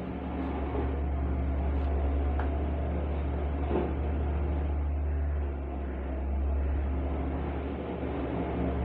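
A steady low mechanical hum or drone, with a brief dip in level a little past the middle.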